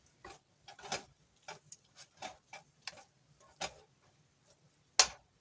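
A kitchen utensil clicking and tapping against a pot while spaghetti is mixed with melted butter: irregular light clicks, a couple a second, and one sharper knock near the end.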